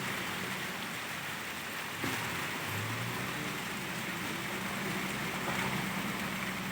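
A steady rain-like hiss with a low engine hum under it that grows stronger about three seconds in.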